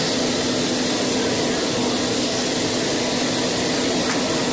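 Steady rush and whine of a turbine engine running, unchanging in level, with a constant low hum under it.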